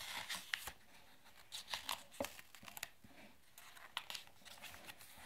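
Faint rustling of paper as fingers handle a book's pages and turn one over, in a few short scattered brushes and crinkles.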